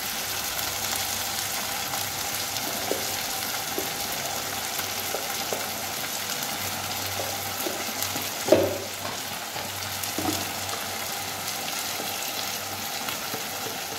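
Lentils and diced potato frying in hot mustard oil in a steel kadai: a steady sizzle. A few light clicks and one louder knock about eight and a half seconds in.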